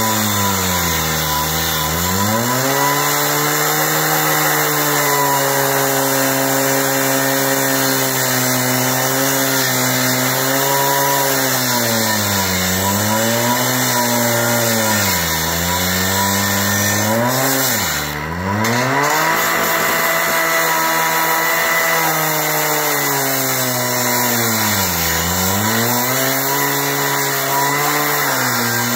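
Two-stroke gas-powered cut-off saw running at high revs while its cutting wheel grinds through galvanized steel pipe. The engine pitch sags deeply several times as the wheel bites into the metal, then picks back up.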